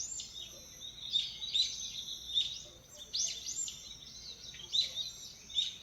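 Several songbirds chirping and calling, with many quick, sharp, overlapping notes throughout.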